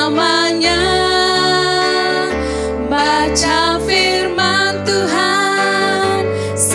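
Two women singing a Malay children's praise song into microphones over a musical backing track, with a low bass line that changes note every couple of seconds.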